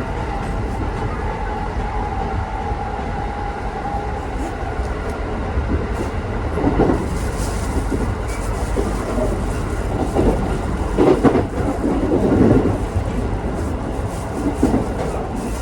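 Inside a local electric train: steady running rumble with wheels clicking over rail joints, a faint whine fading away over the first few seconds, and several heavier clunks in the second half as the train slows into a station.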